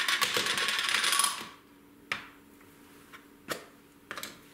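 Spice mix being shaken in a small metal tin: a dense metallic rattle for about a second and a half, then three or four sharp clicks.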